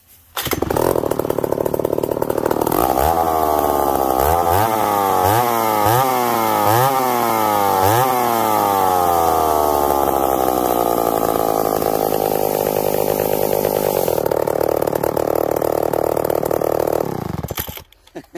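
Vintage McCulloch two-stroke chainsaw engine running loudly. It is revved in about six quick throttle blips, then its speed sinks gradually, holds steady, and the engine cuts off suddenly near the end.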